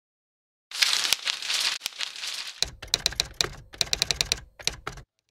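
A hiss lasting about two seconds, then a run of rapid, irregular sharp clicks over a low rumble that cuts off suddenly about five seconds in.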